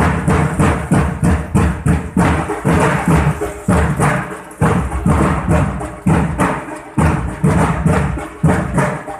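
Rhythmic percussion music with a heavy, steady drumbeat about two to three strokes a second.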